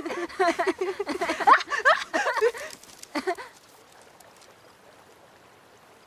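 Laughing: a string of quick, bubbling giggles for about three seconds, with one last short laugh just after. It then fades to the faint steady trickle of a stream.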